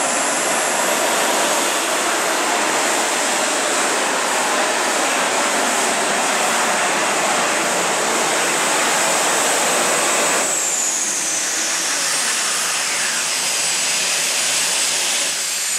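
Unlimited modified pulling tractor running flat out under load with a loud, high whine over the engine noise. About ten seconds in the power is cut back sharply and the whine slowly winds down, as the pull ends.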